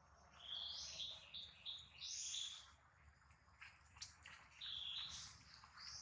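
Faint, high-pitched chirping calls in two runs of short notes, with a pause of about a second between them.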